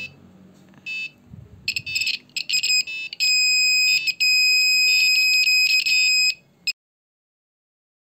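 Piezoelectric buzzer of a homemade smoke alarm sounding a high steady tone, first in short broken pulses and then held for about three seconds before cutting off suddenly. It is set off by a high smoke reading from the gas sensor.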